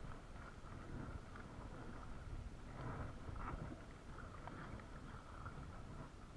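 Water lapping against the hull of a plastic fishing kayak on open water, with wind rumbling on the microphone.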